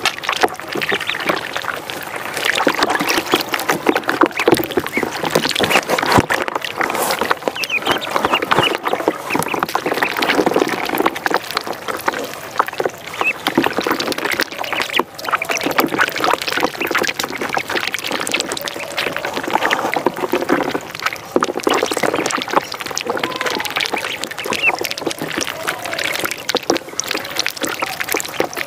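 A flock of ducklings peeping constantly all together, many overlapping calls, with paddling and splashing in shallow water.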